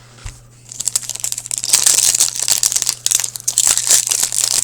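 A hockey card pack wrapper crinkling and tearing as the pack is opened, starting about a second in and then going on continuously with many small crackles.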